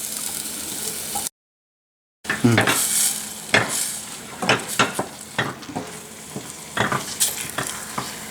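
Sizzling pan as cooked moong dal is stirred into the frying potato-onion mixture, a spoon knocking and scraping against the pan many times over the sizzle. About a second in the sound drops out completely for a moment, then the stirring resumes.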